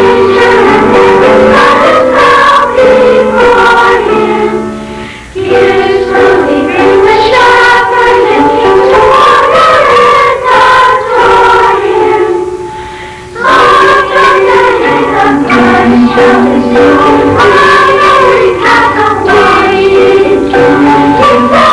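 Children's school choir singing a Christmas song, with two short pauses between phrases about five and thirteen seconds in.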